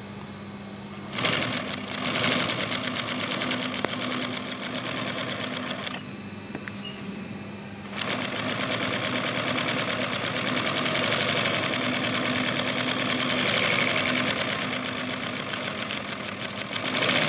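Double-needle industrial lockstitch sewing machine (LT2-H620M) sewing a test seam in two runs: fast, even stitching from about a second in, a stop of about two seconds around the middle, then stitching again for the rest. A steady low hum runs underneath throughout, including during the stop.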